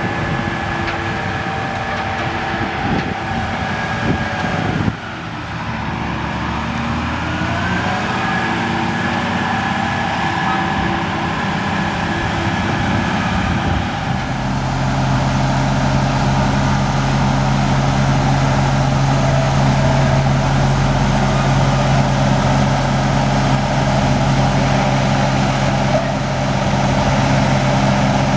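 Case IH Steiger 500 Quadtrac's 12.9-litre diesel engine running steadily under load while pulling a five-furrow plough, with a thin high whine over the drone. It breaks off suddenly about five seconds in, and the low drone grows louder and steadier about halfway through.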